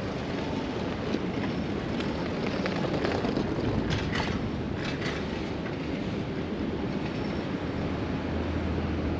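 Steady riding noise from a bicycle-mounted camera: tyres rolling on the road and wind on the microphone, with a few light clicks or rattles about four to five seconds in.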